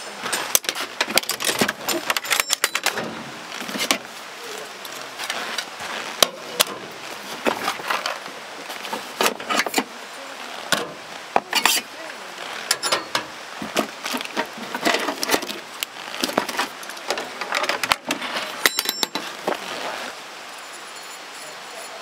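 Hard objects being handled: irregular clinks, clicks and clatters over a steady background hiss. The clinking stops about 20 seconds in.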